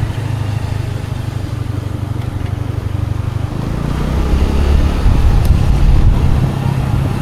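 Scooter engine running on the road with wind and tyre noise, getting louder from about halfway through as it picks up.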